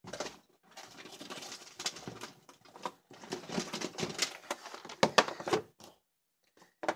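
Rustling and clicking of clear plastic cases of wood-mounted rubber stamps being handled and set down on a tabletop, with irregular sharp clicks and knocks throughout, a short pause, then one more click near the end.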